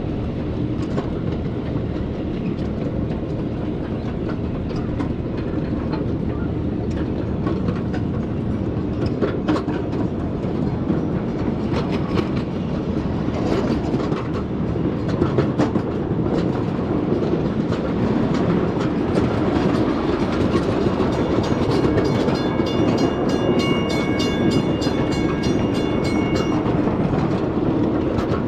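7½-inch gauge miniature train running on its track, with a steady rolling rumble and wheels clicking over the rail joints. A high ringing sound in several tones joins in about two-thirds of the way through and stops a little before the end.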